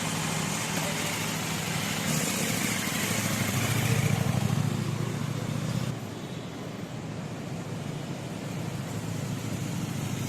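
Motor vehicle engine running amid road noise, a steady low hum with a rushing haze over it; the sound drops abruptly about six seconds in.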